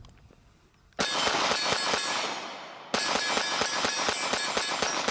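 Rapid 9mm pistol fire from a Glock 26 at steel plates. The plates clang and ring on each hit. One quick string begins about a second in and another about three seconds in, each fading as it rings out.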